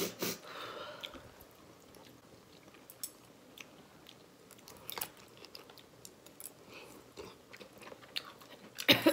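People chewing and eating spicy instant hotpot close to the microphone: quiet chewing with a few scattered sharp clicks, and a louder cluster of eating noises near the end.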